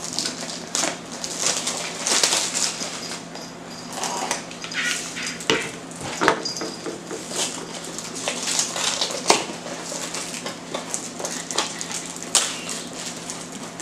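Small cardboard blind boxes being torn and pried open by hand: irregular crinkles, rips and taps of cardboard and packaging.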